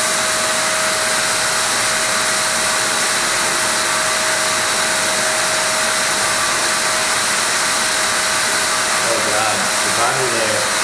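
Water tunnel running: its pump and flowing water make a steady rushing hiss with a constant whine.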